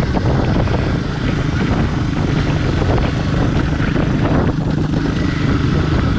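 Honda C90 step-through motorcycle's small single-cylinder engine running steadily at cruising speed, with wind noise on the bike-mounted microphone.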